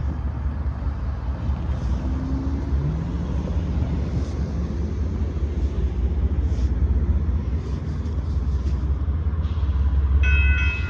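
A steady low rumble throughout. About ten seconds in, the grade crossing's warning bell starts ringing as the crossing signals activate for an approaching train.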